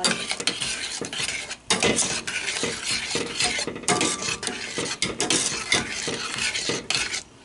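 A utensil stirring and scraping around a stainless steel saucepan of strawberry filling that is thickening with cornstarch, in quick repeated strokes, with a short pause about two seconds in.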